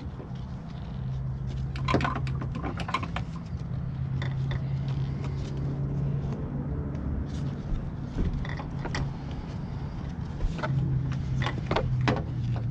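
Scattered clicks and light plastic knocks as a replacement door mirror and its wiring harness are fed into a Ford Transit's door, over a steady low hum.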